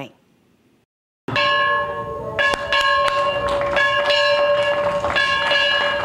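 A large yoke-mounted school bell rung by hand with its lever: the clapper strikes about twice a second, and the bell's ringing tone hangs on between strikes. It starts about a second in.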